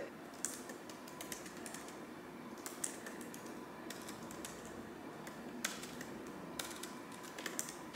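Fingers typing on a laptop keyboard: faint, quick keystrokes with a few louder key clicks here and there.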